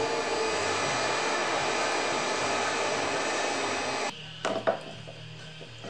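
TIG welding arc on the stainless steel armature, a steady hiss that cuts off about four seconds in, followed by a couple of light knocks.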